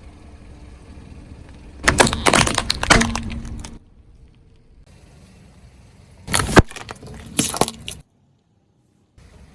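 Car tyre rolling over and crushing brittle objects: two loud bursts of cracking and crunching, the first about two seconds in and lasting nearly two seconds, the second a little past the middle, with a low steady rumble between them.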